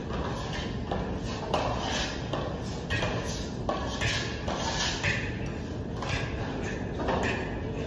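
Plastering trowels scraping across a Venetian plaster ceiling in quick, repeated strokes, about two a second, over a steady low rumble.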